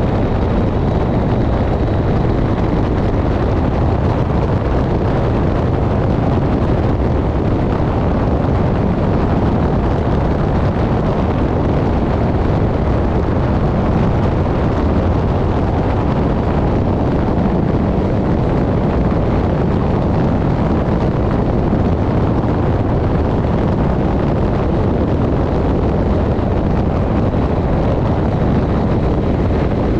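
KTM motorcycle cruising at a steady road speed, its engine and the rush of wind over the microphone making one even, unbroken noise with no gear changes or revs.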